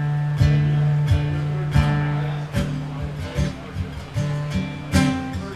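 Acoustic guitar strummed in a steady rhythm, its chords ringing between strokes, played through the sound system with added reverb: the lead-in to a country song.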